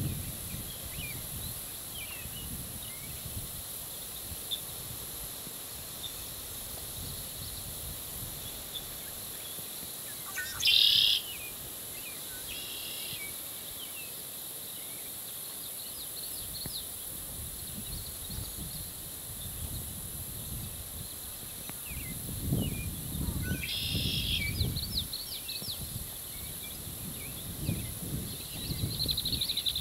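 Birds chirping and singing, with short buzzy song phrases about 11, 13 and 24 seconds in, the first the loudest. Wind rumbles on the microphone at times, most strongly about 23 seconds in and near the end.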